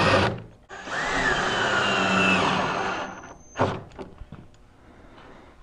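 Cordless drill boring a bolt hole. It stops just after the start, then runs again for about two and a half seconds with a whine that rises in pitch. A single short knock follows about half a second after it stops.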